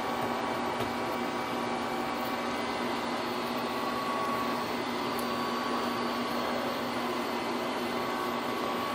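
Steady mechanical hum made of several constant tones, like a fan or blower running in a small room, unchanged throughout. The bearing being fitted by hand makes no distinct sound over it.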